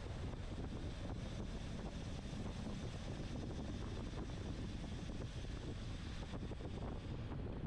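Steady wind rush over the microphone of a camera riding on a racing bicycle at speed.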